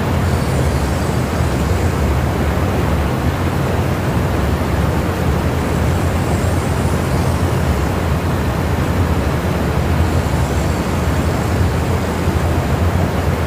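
Sportsman 1000-watt portable generator running steadily, a constant low engine drone with no change in speed.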